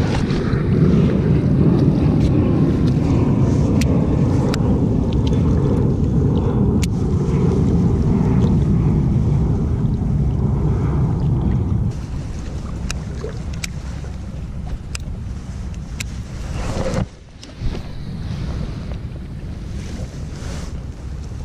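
Low, steady noise of wind and rain-jacket fabric rubbing against a chest-mounted action camera, louder for the first twelve seconds and then quieter, with a few scattered light ticks.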